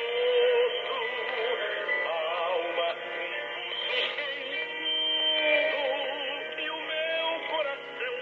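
Music with a singing voice received on shortwave from Radio Nacional da Amazônia on 11780 kHz, played through a Tecsun PL-380 portable radio's small speaker. The sound is thin and narrow, with no bass and nothing above the middle treble.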